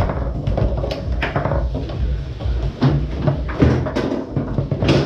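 Foosball being played on a Tornado table: the ball cracking off the plastic players and rods knocking, in sharp separate strikes roughly once a second, over a steady low hum.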